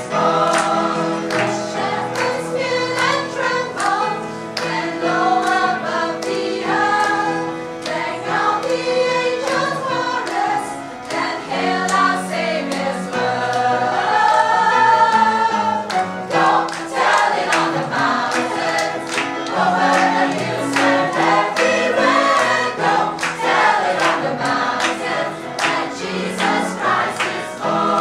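Mixed choir of women and men singing a Christmas song together, many voices in full, continuous song.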